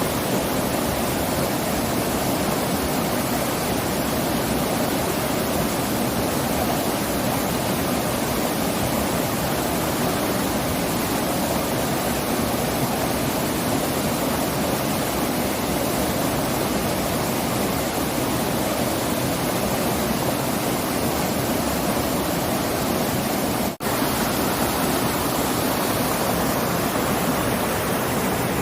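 Mountain stream running full, water rushing over rocks and small cascades in a steady, even rush. A split-second break comes about three-quarters of the way through.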